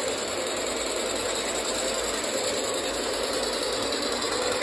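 Several O gauge model trains running on Fastrack O27 track: a steady mechanical whir of wheels and motors on the metal rails.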